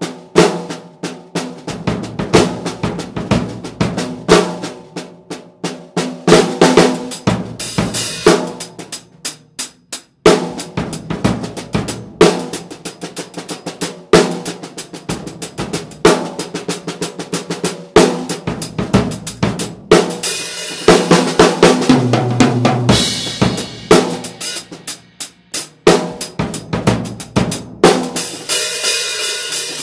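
Drum kit played with sticks in a groove, led by a 14 x 6 beech and mahogany block-stave snare drum with a Remo CS reverse clear dot head, with unmuffled bass drum and cymbals. Busy snare strokes run throughout, with brighter, denser stretches about two-thirds through and near the end.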